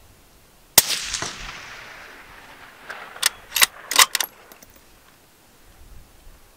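A single rifle shot from a Ruger American Gen II bolt-action rifle in .223 Rem, its report echoing away over about a second. About two seconds later comes a quick run of sharp metallic clicks as the bolt is worked to eject the case and chamber the next round.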